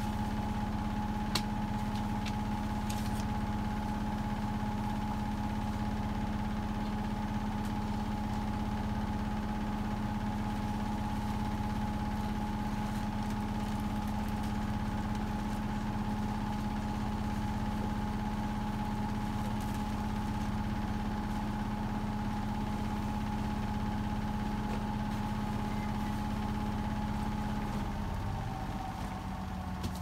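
Hotpoint WMFUG 942 washing machine spinning its drum at a steady speed, a constant motor whine over a low rumble. About two seconds before the end the whine starts to fall in pitch as the spin begins to slow down, the end of a spin before the final rinse.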